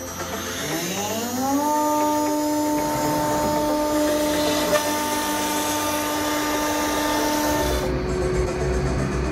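5 HP CNC router spindle spinning up with a rising whine over about a second and a half, then holding a steady whine at speed while it cuts, over a steady hiss. Near the end the whine gives way to a lower rumble.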